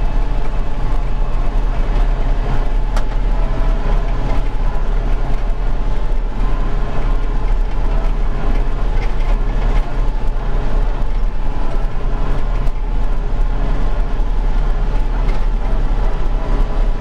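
Bobcat CT5555 compact tractor's diesel engine and hydrostatic drive running steadily, heard inside the cab while driving with the hydrostat pedal held steady. The drive is said to cut in and out, a fault the dealer ties to a bad hydraulic pump.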